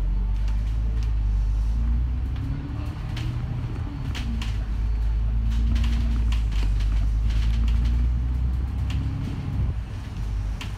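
Franchised bus's diesel engine pulling under load, a deep rumble with the engine note climbing, dropping about three seconds in as the gearbox shifts up, then holding steady. Light rattles and creaks from the bus body come through.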